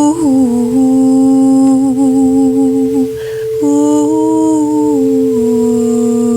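A woman's voice humming long held notes that slide slowly downward, with a short break for breath about three seconds in, over a steady singing-bowl drone.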